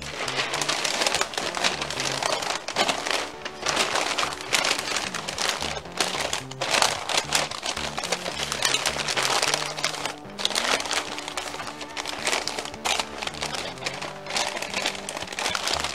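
Butcher paper crinkling and rustling in irregular bursts as it is folded and pressed tight around a beef rib, over background music with a stepping bass line.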